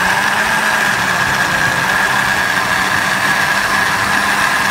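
Countertop electric blender running steadily, puréeing a wet spice paste, with a steady high motor whine.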